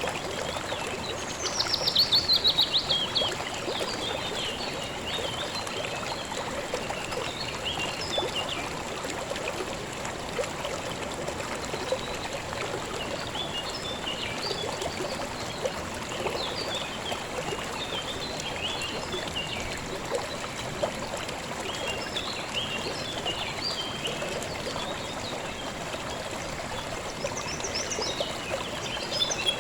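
A river flowing steadily, with songbirds chirping throughout. About two seconds in, a bird gives a loud, rapid trill that falls in pitch.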